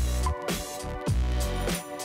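Electronic background music with a sustained deep bass and a steady beat of deep, falling kick-drum thumps a little under twice a second.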